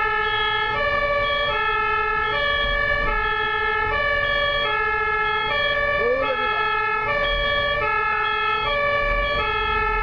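A German ambulance's two-tone siren (Martinshorn) sounding steadily. Its two notes alternate evenly, each held a little under a second, over a low traffic rumble.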